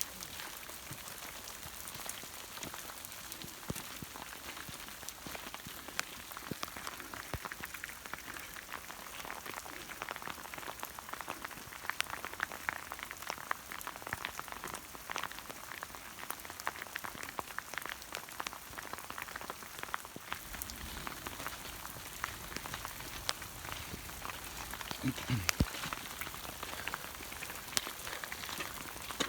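Steady rain, many small drops ticking in a dense patter.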